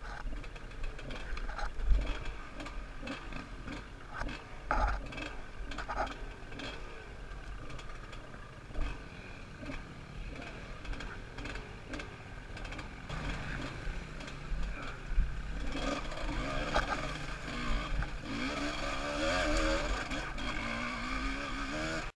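Yamaha WR200 two-stroke trail bike engine running over rough ground, the revs rising and falling continually. Sharp knocks from bumps and a low wind rumble on a helmet-mounted microphone are mixed in.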